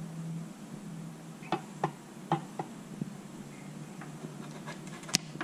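Clicks and knocks from handling at an open rear axle differential: a quick cluster of about five between one and a half and three seconds in, and a single sharper, louder click near the end, over a steady low hum.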